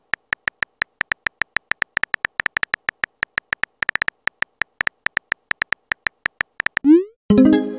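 Rapid run of short electronic beeps at one steady pitch, one for each typed character: the keyboard sound effect of an animated text-message chat. Near the end a quick rising swoop and then a chime play as a message is sent.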